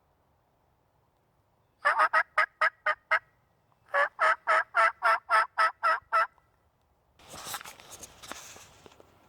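Turkey call worked by the hunter, giving two runs of evenly spaced hen yelps, about seven and then about nine notes, to draw in a gobbler. A rustling scrape follows near the end.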